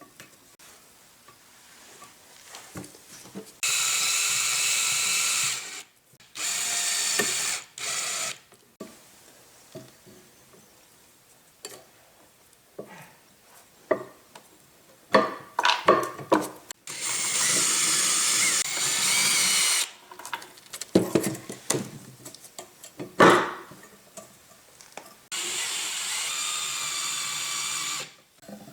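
A power tool runs in four steady bursts of about two to three seconds each, with short metal clicks and knocks from parts being handled in the gaps between them.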